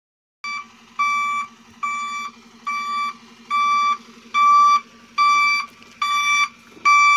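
Heavy vehicle's reversing alarm beeping at a steady pitch, about one beep a second and growing louder, over a diesel engine running. It starts suddenly about half a second in.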